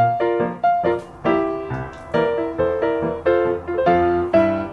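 Background piano music: a steady run of struck notes, each fading out before the next.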